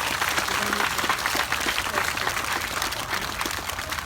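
Crowd of schoolchildren and adults applauding, a dense, steady patter of many hands clapping, with a few voices faintly mixed in.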